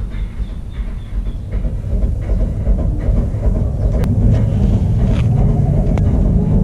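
A low, steady rumbling noise that grows louder over the first few seconds, with a few faint clicks.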